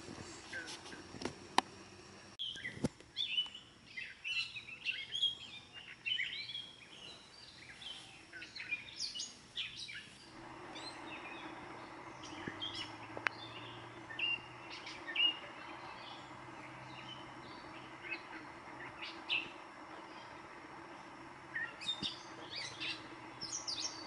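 Pre-dawn bird chorus: several birds chirping and singing over and across one another. A few sharp clicks come in the first three seconds, and a faint steady hum joins from about ten seconds in.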